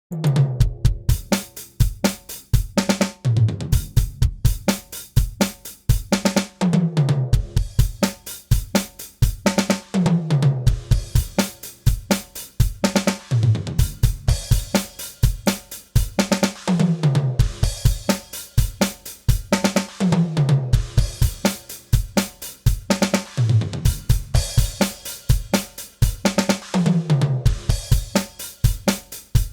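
DrumGizmo virtual acoustic drum kit playing a looped rock groove: kick, snare, hi-hat and cymbals, with a fill down the toms that comes round about every three and a third seconds. The dry close-mic stems are playing with the overhead mic tracks being faded in.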